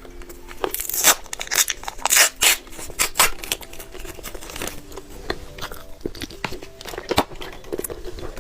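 Plastic candy wrapper being torn open and crinkled: a cluster of sharp rustling rips about a second in, then scattered lighter crackles.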